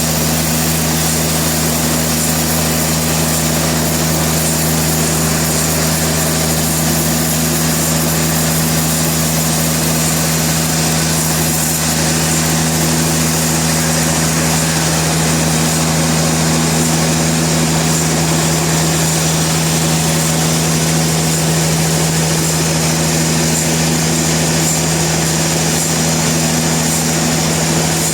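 Sawmill machinery running steadily: an even motor drone with a constant low hum and a hiss above it, unchanged throughout.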